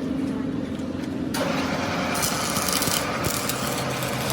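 Machinery running with a steady low hum; about a second in, a louder, noisy sound starts suddenly and keeps going.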